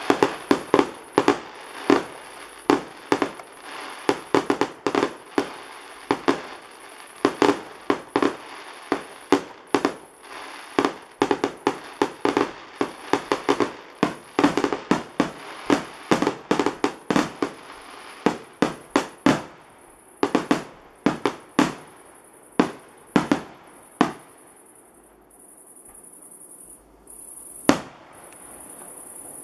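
Fireworks display: a rapid run of bangs from bursting aerial shells that thins out about two-thirds of the way through, with one last bang near the end. Crickets chirp steadily underneath.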